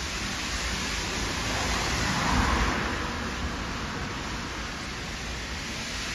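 Steady rushing noise of a moving passenger train heard from a carriage window: wheels running on the rails and air rushing past. It swells briefly about two seconds in, then eases.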